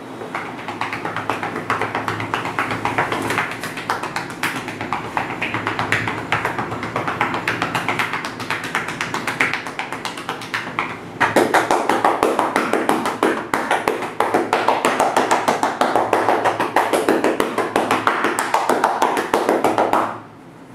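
Massage therapist's hands striking rapidly on a person's back and shoulders: percussive tapotement as a continuous run of fast slapping taps, louder from about halfway through and stopping just before the end.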